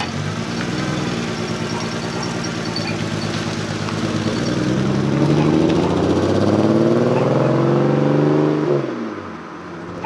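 2007 BMW 328i's inline-six pulling away and accelerating hard, its pitch rising steadily for several seconds before it falls away about nine seconds in. The engine sounds pretty nasty: it is misfiring, which the owners put down to a failed ignition coil.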